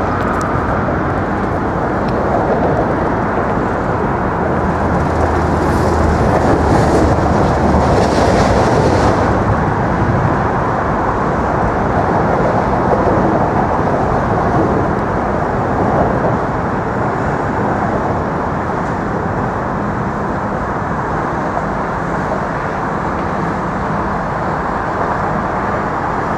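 Subway train rumbling and rattling across the Manhattan Bridge's tracks, loudest about a quarter of the way in, then a steady rumble.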